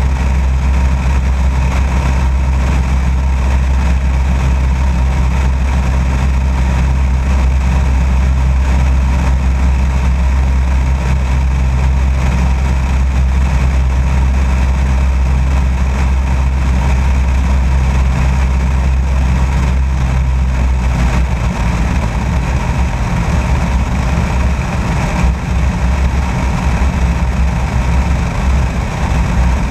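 Light aircraft's piston engine droning steadily in cruise flight, with air rushing past the outside-mounted camera. About two-thirds of the way through, the deepest part of the drone turns uneven and buffeting.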